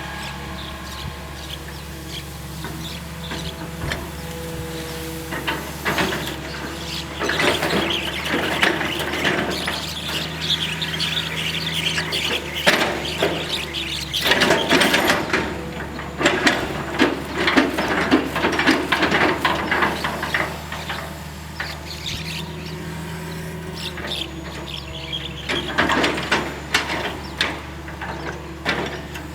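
Hitachi EX220-1 long-reach excavator's diesel engine running steadily, overlaid from about six seconds in by busy squealing, clicking and knocking as the machine works, easing off briefly before a second spell near the end.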